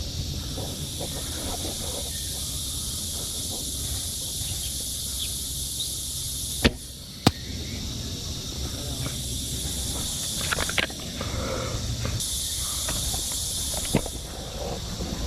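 Airsoft gunfire: two sharp cracks about half a second apart near the middle, and two fainter ones later, over a steady high-pitched hiss.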